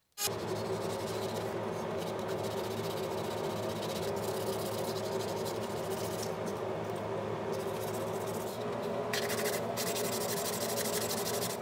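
Sanding the paint off a tin toy cement mixer's sheet-metal parts: a steady, continuous abrasive scrubbing that starts abruptly just after the start.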